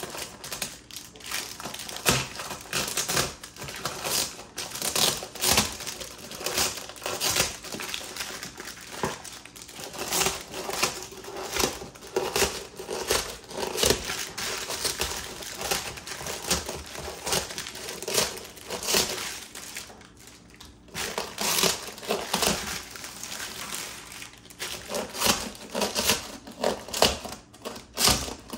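Plastic wrapping on a new motocross tire crinkling as it is cut away with scissors: irregular rustles and sharp clicking snips, briefly quieter about twenty seconds in.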